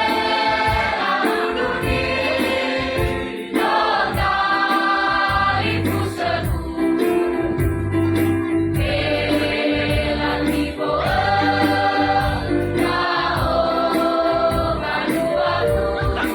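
Choir singing a gospel song in harmony, phrase after phrase, with a low sustained accompaniment underneath.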